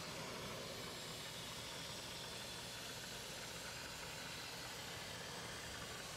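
Dry Ice Energy Champ Vario dry ice blaster running: a steady, even hiss of compressed air from the blasting nozzle, unchanging throughout.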